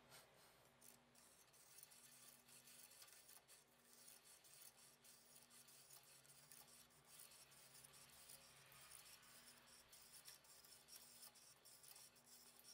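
Near silence: faint hiss with scattered soft crackling clicks.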